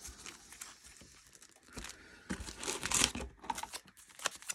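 Trading card pack wrappers crinkling as they are handled, soft at first and louder from about halfway through, with a few sharp crackles.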